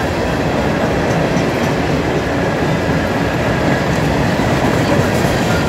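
Hopper cars of a freight rock train rolling past close by: the steady, even noise of steel wheels running over the rails.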